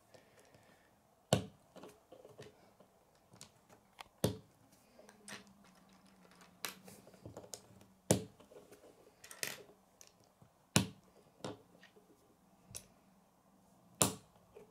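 Plastic K'nex pieces clicking as they are pressed and snapped onto a K'nex flower build by hand. The clicks are sharp and come singly at irregular intervals, about eight of them, with soft handling rustle in between.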